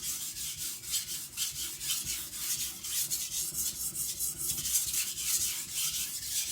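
Steel knife blade stroked back and forth on a coarse whetstone, a steady gritty rubbing in even strokes about two to three a second, raising a burr while setting the bevel.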